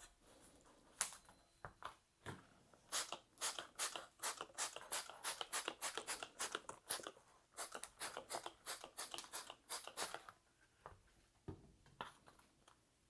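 Rusty snowmobile muffler being hand-sanded: quick back-and-forth scratchy strokes, about three to four a second, starting about three seconds in and stopping near ten seconds, with a few single scrapes before and after.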